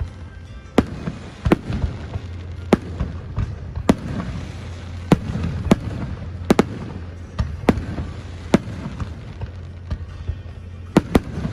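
Fireworks bursting overhead: about a dozen sharp bangs at irregular intervals, two pairs in quick succession, with music playing along underneath.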